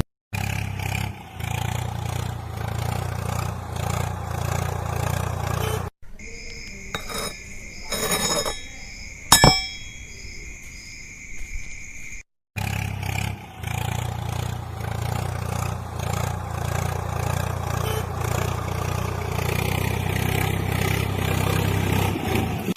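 Heavy machinery engine running steadily with a low rumble, in clips cut together; a middle section a few seconds long instead holds two steady high tones and a few sharp clicks.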